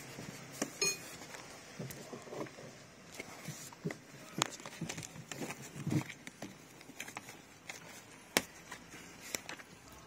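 Water dripping and pattering in irregular drops from the leaking roof-membrane drain of a Porsche Boxster 986, with one sharper knock a little past eight seconds in. The water is escaping from the roof membrane instead of draining away: the membrane is leaking.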